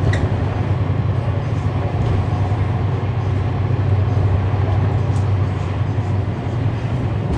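Cummins ISL9 inline-six diesel engine of a 2011 NABI 40-SFW transit bus, heard from inside the bus, running steadily with a deep, even drone, with a few faint ticks and rattles on top.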